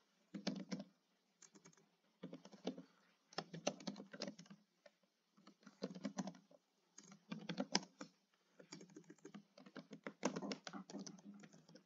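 Typing on a computer keyboard: quick runs of keystrokes in short bursts, with brief pauses between them.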